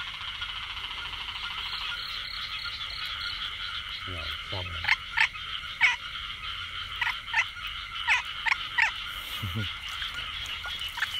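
A steady, dense chorus of rice-field frogs calling, the breeding chorus of the early rainy season. From about five seconds in, a string of sharp splashes and clicks as hands grope in the shallow water.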